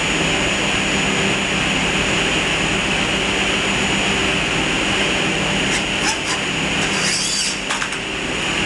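Steady machinery drone with a constant low hum and a thin high whine, with a few short clicks about six and seven and a half seconds in.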